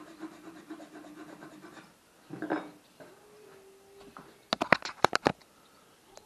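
A chisel scraping wood inside the throat of a handmade wooden plane body, paring graphite-marked high spots off the bed to flatten it, in fine rapid strokes. This is followed by a brief scuff and then a quick clatter of sharp knocks, the loudest sounds, as the plane body is handled.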